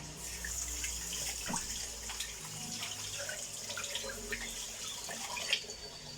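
Water running from a kitchen tap, with small clicks and a louder knock near the end from utensils handled at the sink.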